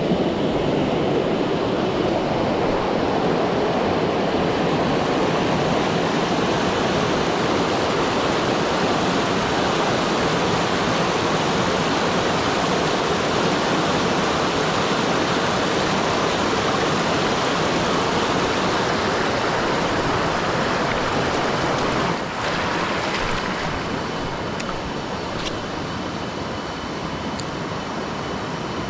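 Steady rush of water over river rapids, a dense even noise; it drops a little in level about three quarters of the way through.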